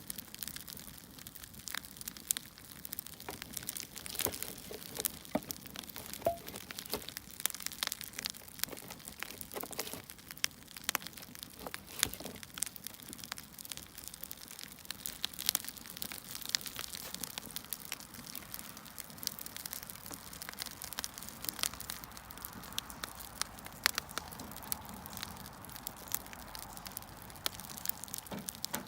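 Firewood burning in a fire, crackling with irregular snaps and pops over a soft steady hiss.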